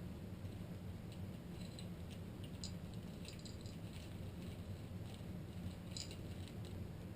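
Faint, scattered light clicks and clinks of small metal engine parts being handled and set down, over a steady low background hum.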